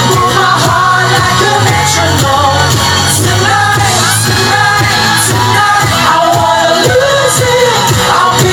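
Boy band singing a pop song live over a loud backing track, with shouts from the crowd.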